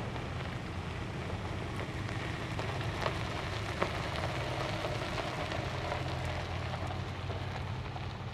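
Vehicle on the move: a steady low engine hum under a rushing road and tyre noise, with two small knocks about three and four seconds in.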